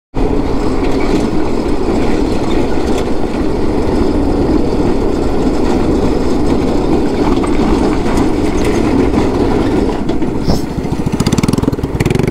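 Go-kart's small single-cylinder 5 HP engine running hard at speed, mixed with heavy wind rush on the onboard camera. Near the end the engine drops back and its separate firing pulses come through as it slows.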